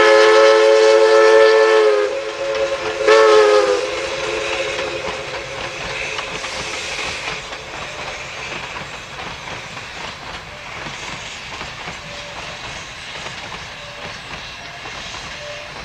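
Steam locomotive's whistle sounds one long blast of about two seconds, then a second short one, followed by the steady rumble and clatter of passenger cars rolling past on the rails.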